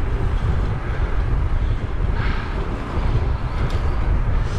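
Wind buffeting the microphone of a camera on a moving bicycle: a steady low rumble, with a brief rise in hiss about two seconds in.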